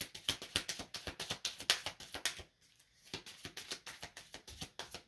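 Tarot cards being shuffled by hand: a fast run of small card clicks and flutters, a brief pause about halfway, then more shuffling.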